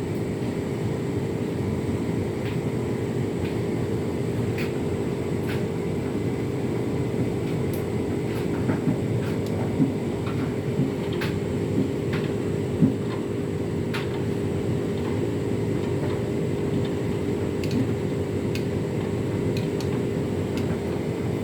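A Hotpoint tumble dryer and a Candy washing machine running together: a steady motor hum with scattered knocks and clicks from the load and a tumble dryer ball tumbling in the drum.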